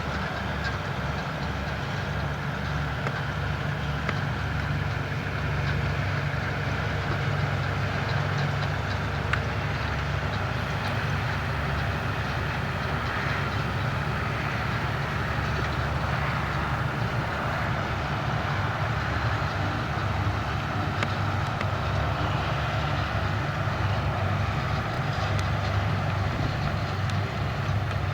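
Fendt tractor engine running steadily under work, with a continuous mechanical clatter from the trailed Grimme potato harvester.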